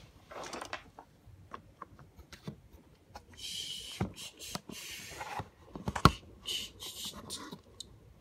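Plastic toy figures being handled in a plastic dollhouse: scattered light taps and clicks, short stretches of rubbing and sliding noise, and one sharp knock about six seconds in.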